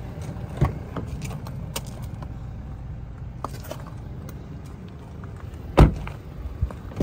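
Rear passenger door of a Toyota Land Cruiser Prado shut with one loud, solid thud about six seconds in, after a lighter click near the start, over a steady low rumble.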